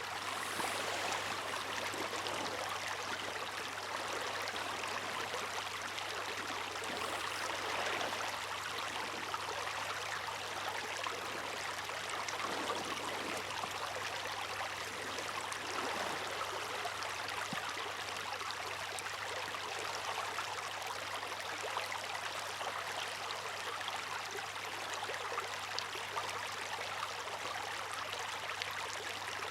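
Water rushing and splashing in a steady hiss, swelling slightly now and then, with a faint steady low hum underneath.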